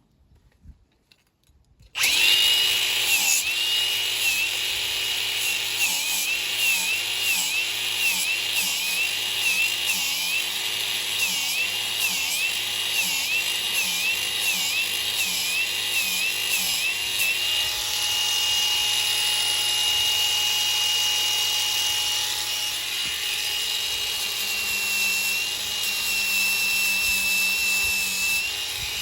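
Electric grinder with a flap disc starting about two seconds in and grinding down rubber on a tire sidewall. Its whine dips in pitch again and again as it is pressed into the rubber, then runs steadier over the last ten seconds.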